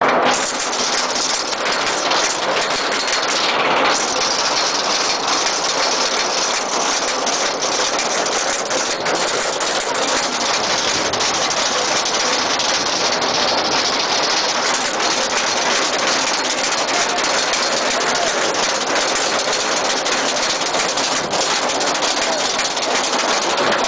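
Roller coaster train climbing the lift hill, with a steady mechanical rumble from the lift and the cars.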